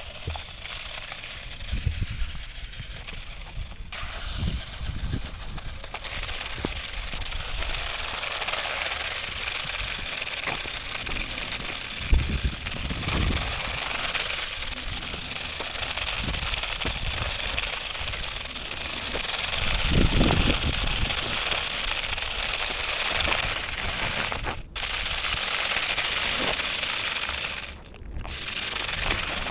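Toy-grade DEERC DE81 four-wheel-drive RC car with omni wheels driving and spinning on the ground: small electric motors whirring and the plastic wheels rattling and clattering, with scattered knocks and one sharp knock about twelve seconds in. The sound drops out briefly twice near the end.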